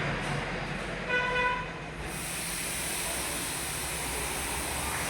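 A short pitched toot about a second in, then a steady hiss of compressed air setting in about two seconds in, over a low hum.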